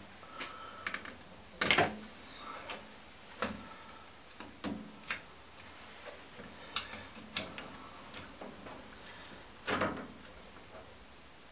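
Scattered clicks and plastic rattles as a boiler's circuit board and its plastic wire connectors are handled and the connectors unplugged, with two louder knocks, one about two seconds in and one near the end.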